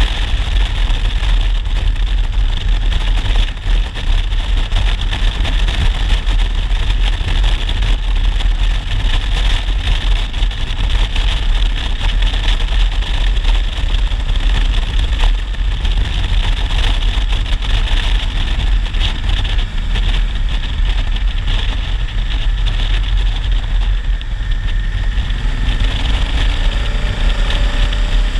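Honda Africa Twin DCT's parallel-twin engine running at steady road speed, about 90 km/h, under loud wind rush on the microphone. Near the end a rising engine note comes through.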